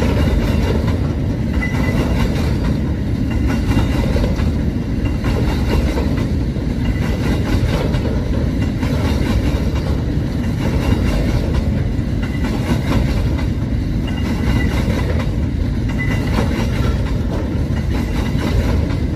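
Grain hopper wagons of a freight train rolling past at close range: a steady rumble with the clatter of wheels over the rails.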